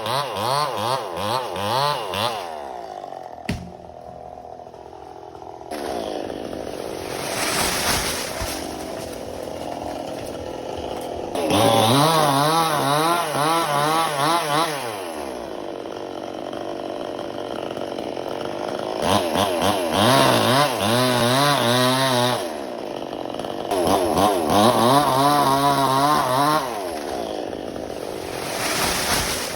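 Chainsaw cutting into a coconut palm trunk. The engine revs up hard in several long bursts, its pitch wavering under load, and drops back to a lower, steadier running between cuts.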